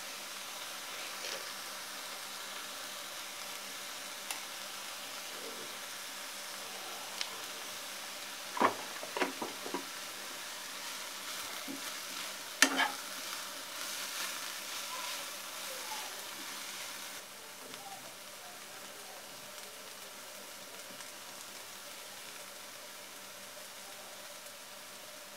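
Chopped vegetable quiche filling sizzling in a non-stick frying pan as it is stirred with a metal spoon, with a few sharp clinks of the spoon against the pan around the middle. The sizzle eases a little about two-thirds of the way through.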